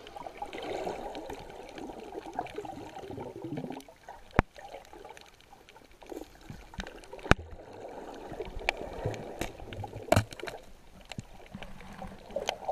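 Muffled underwater water movement picked up through a GoPro's waterproof housing, with a few sharp clicks scattered through.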